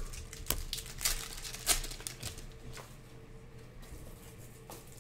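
Panini Prizm basketball trading cards being handled: light rustles, card snaps and clicks as cards are slid and flicked through, busiest in the first two seconds and then softer, over a faint steady hum.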